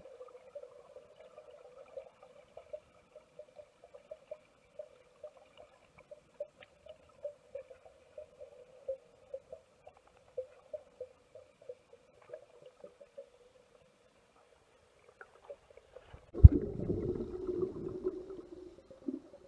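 Underwater sound heard on a camera: a faint steady hum with soft, regular pulses about twice a second, then, about sixteen seconds in, a sudden loud rush of water lasting a few seconds.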